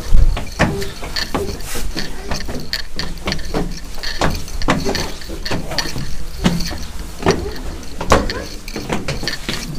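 Footsteps climbing a stone tower staircase, about two or three steps a second, mixed with the knocks and rubs of a camera handled close to the body.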